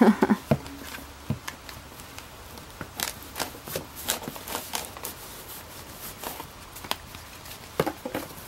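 Clear plastic planner cover rustling and crinkling as hands work a fabric planner cover into it, with scattered small clicks and taps, busiest around the middle and again near the end.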